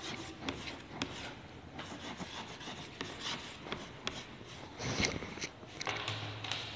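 Chalk scratching and tapping on a chalkboard as a line of words is written, in short strokes with small ticks. A louder rustle comes about five seconds in.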